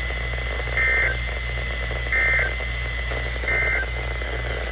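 Emergency Alert System end-of-message data bursts from a NOAA Weather Radio receiver: three short, identical warbling digital chirps about a second and a half apart. They signal that the Flash Flood Warning broadcast has ended. A steady low hum and a thin high tone run underneath.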